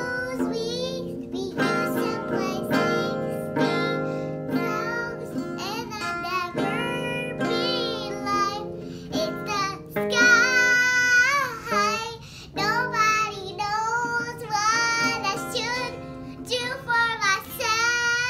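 A young girl singing an improvised, made-up song while strumming a small acoustic guitar, the strings ringing under her voice.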